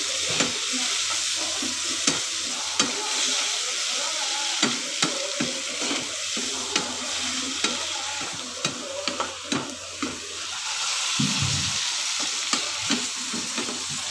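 Jellyfish slices and fermented ensabi greens sizzling steadily in a non-stick frying pan, stirred with a wooden spatula that scrapes and knocks irregularly against the pan.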